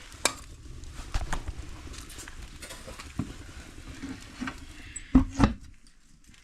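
Wood fire crackling in a fireplace, with scattered sharp clicks and pops, and two heavier knocks about five seconds in.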